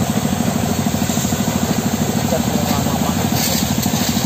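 An engine idling steadily, with a fast, even chugging pulse.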